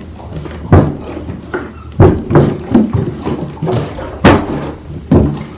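Plastic water bottle being flipped and landing on carpet: several sharp thuds, spaced irregularly about a second apart.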